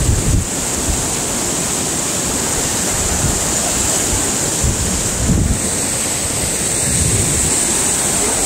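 Steady rush of a flowing stream, with wind buffeting the microphone in low thumps now and then.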